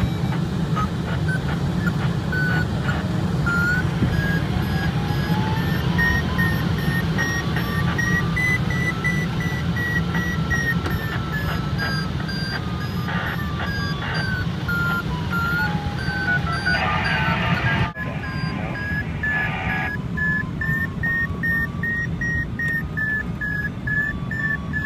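Glider's audio variometer beeping at a high pitch that slowly rises and falls; the beeping signals the glider climbing in lift. Underneath, a steady rush of air past the open cockpit.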